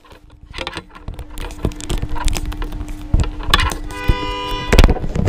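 Close clicks, knocks and rubbing of a GoPro action camera being handled right at its microphone, with a short electronic tone sounding about four seconds in.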